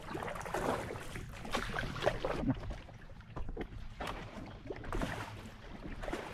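Kayak paddle dipping and splashing in shallow water, with several uneven strokes and water lapping against the kayak's hull.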